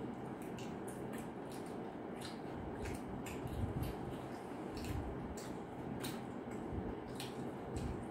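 People chewing bites of egg roll with close mouth sounds: irregular smacks and clicks, a few a second.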